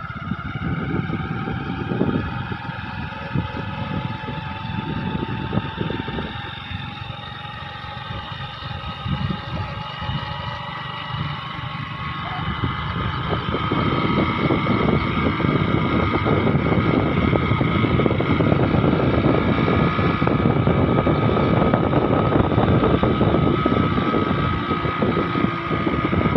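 Motor vehicle on the move, heard from on board: engine running with a steady high whine over a rush of wind and road noise, growing louder about halfway through.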